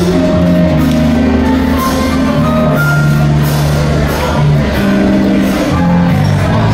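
Background music with held bass notes and a melody line that moves from note to note every second or so.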